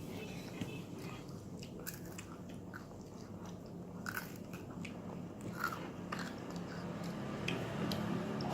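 Close-up biting and chewing of crispy martabak (Indonesian thick sweet pancake), with scattered crunchy clicks and mouth sounds.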